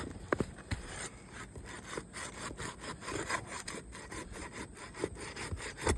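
Pry tool scraping and rubbing under asphalt roof shingles, in irregular strokes with small clicks, as a shingle is worked loose from its sealant and nails.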